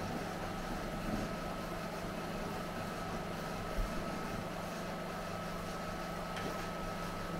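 Film projector running: a steady mechanical drone with a thin, steady high whine over a low hum, and a soft low thump a little before the middle.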